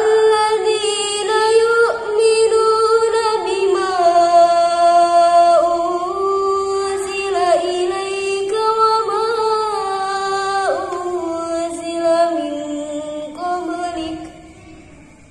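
A woman reciting the Quran in tartil style, in long sustained melodic lines with ornamented turns on the held notes. The voice breaks off about a second before the end for a breath pause.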